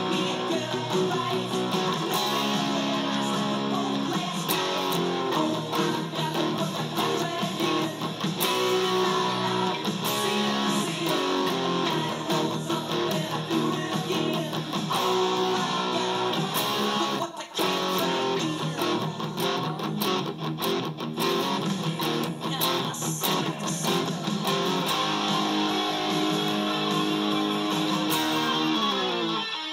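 Fender Stratocaster electric guitar played with a pick through an amplifier, strumming chords and riffs, with a brief break a little past halfway.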